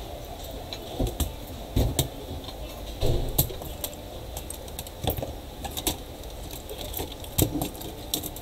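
Irregular sharp clicks and light knocks from a laptop's plastic case and a thin pry tool being handled during disassembly, with a few duller thumps about a second, two, three, five and seven and a half seconds in.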